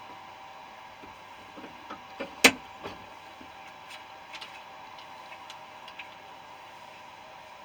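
Scattered small metal clicks and clinks as the cutting disc on an angle grinder is swapped for a bigger one, with one sharp clack about two and a half seconds in. A faint steady hum runs underneath.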